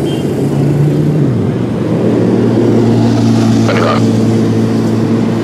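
A motor engine running with a steady low drone, its pitch dropping slightly about a second in, with a brief higher sound near the end.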